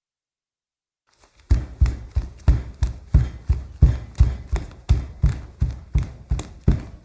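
Running footsteps: heavy footfalls in an even rhythm of about three a second, starting about a second and a half in.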